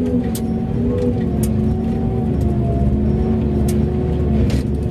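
Mining haul truck's diesel engine running steadily, heard from inside the cab, a low drone with light clicks about once a second.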